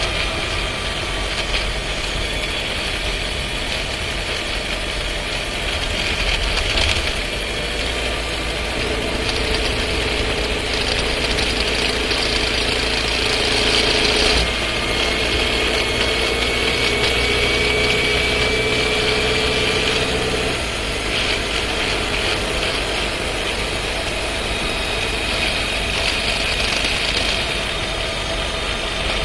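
Skoda Scala's 1.5 TSI four-cylinder engine and DQ200 dry-clutch DSG gearbox heard from inside the cabin while driving, with a rattle under light load that the owner reports as a fault in the new car. A steadier, higher engine note holds for about ten seconds in the middle, then drops away.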